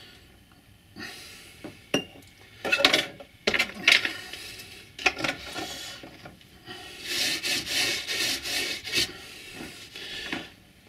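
Irregular bursts of rubbing and scraping with light metallic clinks, as scenic scatter is shaken and rubbed through a small metal tea-strainer sieve onto a model railway board.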